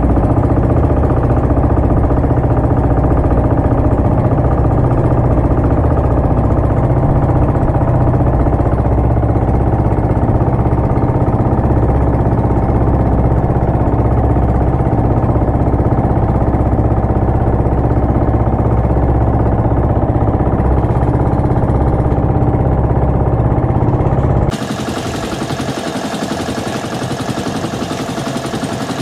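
Outrigger fishing boat's engine running steadily under way, a loud low drone. About 24 seconds in it cuts abruptly to a quieter, hissing noise.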